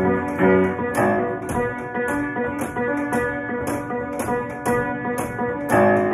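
Old converted upright player piano, untuned for decades and lacking a working sustain pedal, played by hand in a busy improvisation of quick notes and chords. Heavier chords are struck about a second in and again near the end.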